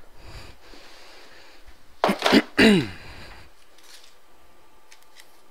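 A man clearing his throat: two short voiced bursts about two seconds in, each falling in pitch, followed by a few faint clicks.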